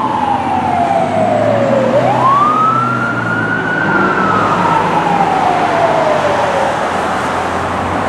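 Fire engine siren winding down slowly. About two seconds in it winds quickly back up to a high pitch, holds briefly, then winds down again.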